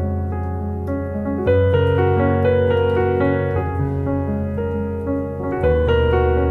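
Slow, sustained keyboard chords with held bass notes, changing chord every couple of seconds: soft worship-style piano accompaniment.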